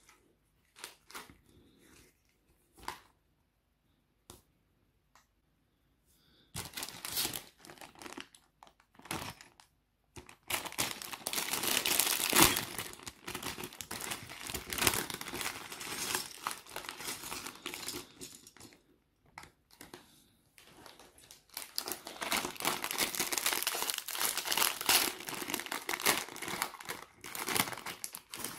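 A few light taps and clicks, then long spells of a thin plastic parts bag of Lego pieces crinkling and tearing as it is pulled open and handled. There is a short pause between the two spells.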